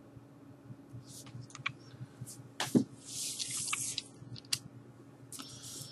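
LP record jackets being handled and swapped: scattered light taps and clicks, a sharper knock a little under three seconds in, then a second or so of papery rustling.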